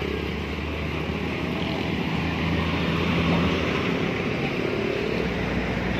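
A truck engine running steadily at low revs, with a low, even hum.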